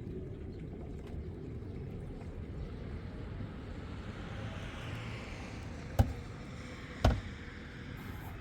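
Two sharp bangs about a second apart, a little over two thirds of the way in, over a steady low rumble; the second bang has a short low tail.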